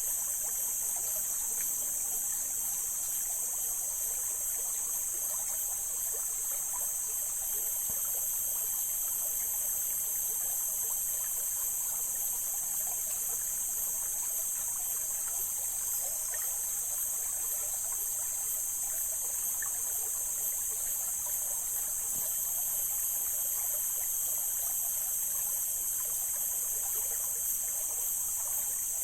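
Mountain stream flowing steadily, with a trickling, burbling rush of water. A steady, very high-pitched hiss sits above the water the whole time.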